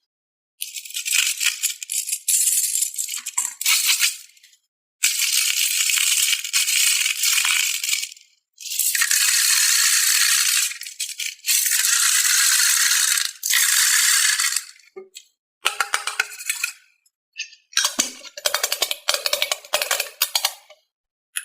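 Small plastic toy balls rattling in repeated bursts of one to three seconds, with short gaps of dead silence between them.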